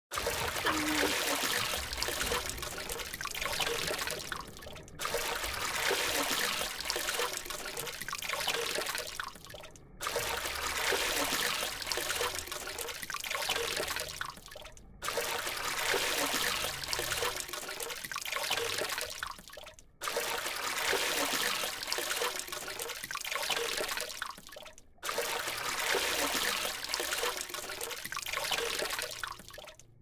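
Trickling, splashing water. The same stretch of about five seconds repeats as a loop, each repeat ending in a brief drop-out.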